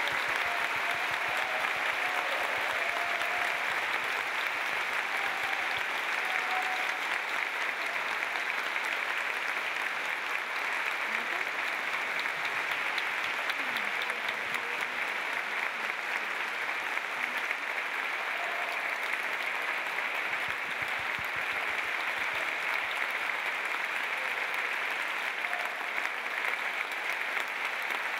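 A large audience applauding steadily, a dense, even clapping that neither builds nor fades.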